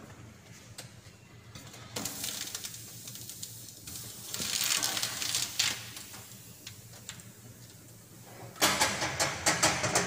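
Metal baking tray sliding and scraping across the steel deck of a commercial deck oven, over a steady low hum. Near the end comes a run of sharp metal clatters as the oven door is pulled shut.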